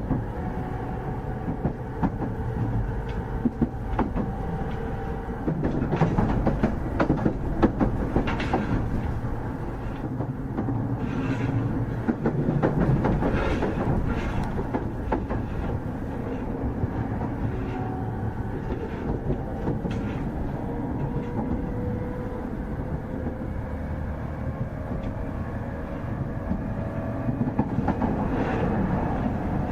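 JR 209 series 2000-subseries electric train (Mitsubishi IGBT VVVF inverter) running at speed, its wheels clacking over rail joints. A thin motor whine rises slowly in pitch over the last ten seconds or so.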